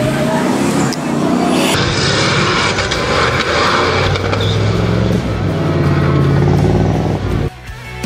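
Off-road race buggy engine running hard at high revs with a steady drone, over a wash of tyre and dirt noise. The sound drops off suddenly near the end.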